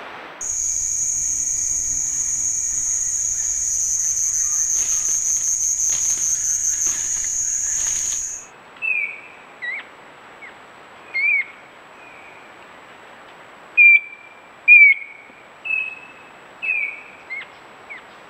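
A steady, high-pitched insect drone stops abruptly about eight seconds in. Then a forest bird gives about nine short, loud whistled notes, most sliding down in pitch, spaced unevenly.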